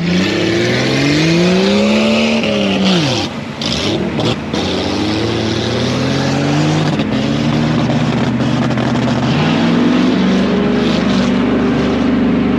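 A vehicle's engine revving up over about two seconds and dropping away, then running steadily and picking up again near the end, over a constant rushing noise.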